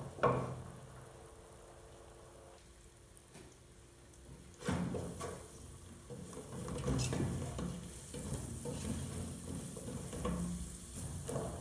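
Wooden spoon stirring sliced carrots and vegetables as they fry in oil in a large aluminium pot, scraping and knocking against the pot. A knock at the start, then quieter until about halfway, when the stirring becomes louder and continuous.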